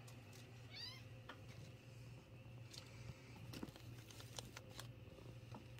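A 20-day-old kitten gives one short, thin mew about a second in. Faint scratches and clicks follow, the kittens' claws and paws on cloth and the plastic crate.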